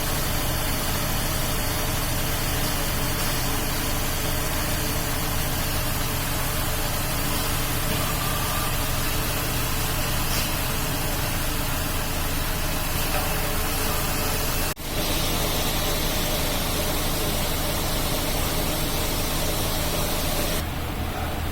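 Robot-fed CNC grinding machinery running steadily: a continuous hiss over a low machine hum, broken once by a brief drop about two-thirds of the way through.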